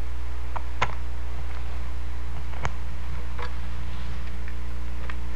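About five scattered clicks and taps from operating playback equipment, the two sharpest a little under a second in and near the middle, over a steady low electrical hum.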